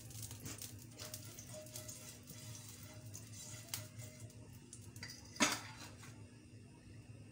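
Silicone basting brush working oil across a hot ridged grill pan: light scrapes and clicks against the pan, with one louder knock about five and a half seconds in, after which it goes quieter.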